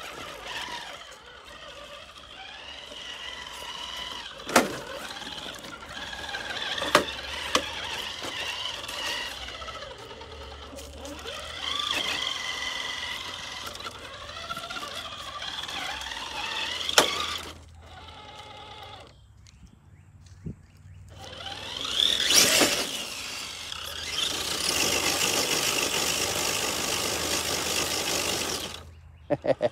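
Electric RC rock crawler's motor and drivetrain whining as it climbs over rocks, with a few sharp knocks along the way. Near the end it speeds up with a rising whine, then its tyres spin and hiss through loose sandy dirt.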